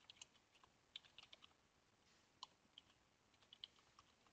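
Faint computer keyboard typing: scattered key clicks in short irregular runs.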